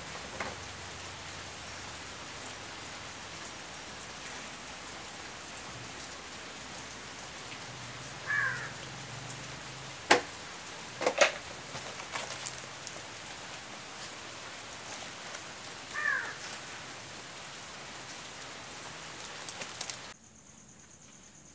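A few sharp metallic clicks as a hand tool works at the exposed clutch and gear parts of a Honda CM125T engine, over a steady hiss. Two short chirps falling in pitch come about a third of the way in and again later, and the hiss cuts off suddenly near the end.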